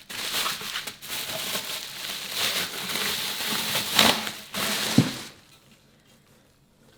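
A cardboard shipping box and its packing being opened by hand: crinkling, tearing and rustling, with a sharp knock about five seconds in, after which the handling stops.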